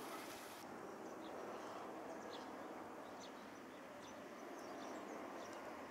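Steady low background noise with a few faint, short high chirps scattered through it.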